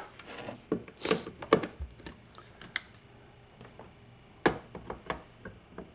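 Scattered light clicks and taps of handling small parts, with a brief faint voice about a second in.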